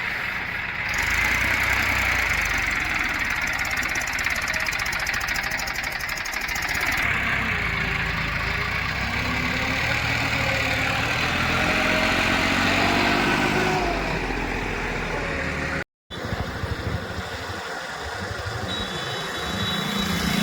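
Heavy diesel machinery engine running steadily, with the pitch climbing as it revs under load around the middle. The sound cuts out abruptly for a moment about three quarters of the way through.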